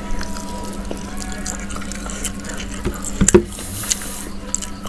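Close-miked wet eating sounds: chewing and small mouth clicks over fried chicken with sambal. About three seconds in there is a louder knock, followed by a short hiss.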